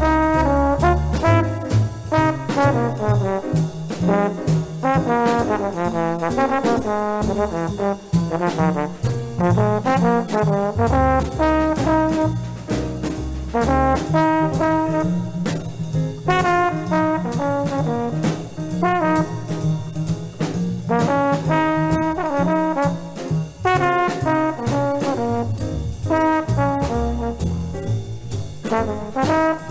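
Jazz trombone soloing over a blues in running lines of quick notes and triplets, backed by a rhythm section of walking bass, piano and drums.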